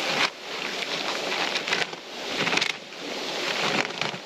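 Old scrap boards being pulled and shifted on a wood pile: dry wood and debris rustling and scraping, with a few louder bursts of handling noise.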